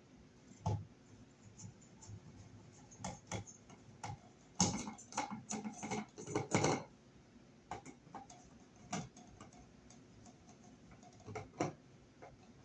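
Phillips screwdriver driving the mounting screws of a thermostat into a wall electrical box: irregular small clicks and ticks of the screw turning, bunched together about halfway through.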